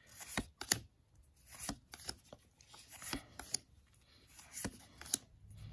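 Paper Magic: The Gathering cards handled one at a time, each card slid from the back of the pack to the front. The cards give short papery swishes and light snaps, about one or two a second.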